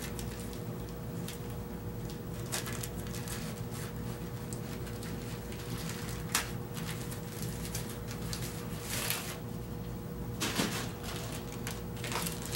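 Cardboard and packing tape scratching and rustling as fingernails pick at and peel tape off a cardboard sleeve, with a few louder paper rustles near the end as the wrapped rubber turntable mat is pulled out. A steady hum runs underneath.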